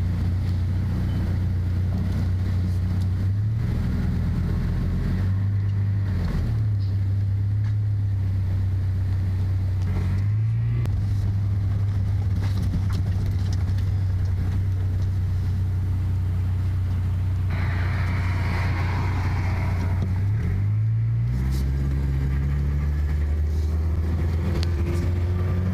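Car engine running, heard from inside the cabin as the car drives on a wet road, its pitch shifting up and down several times. A rushing hiss joins for about three seconds past the middle.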